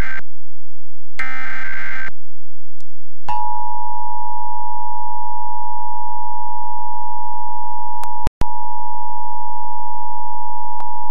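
Emergency Alert System test broadcast: the tail of one SAME data header burst, a second burst about a second in, then the EAS two-tone attention signal (853 and 960 Hz together) sounding steadily from about three seconds in until near the end, with a very brief dropout partway through.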